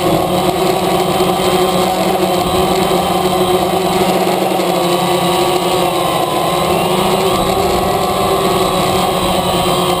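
DJI Phantom quadcopter's motors and propellers humming steadily, several pitches at once, wavering slightly partway through.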